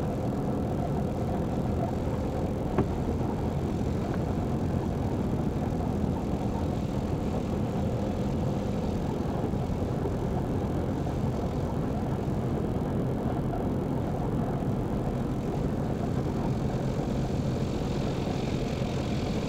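Light aircraft's piston engine and propeller idling steadily while taxiing, with a single sharp click about three seconds in.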